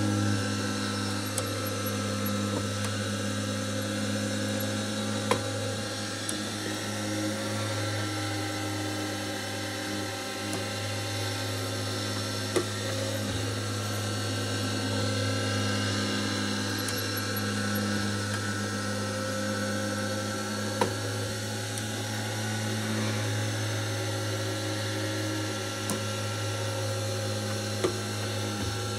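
The internal mechanism of a c1950s Fife Engineering shop-window automaton running: a steady motor hum with whirring gears and cams. A sharp click comes about every seven to eight seconds.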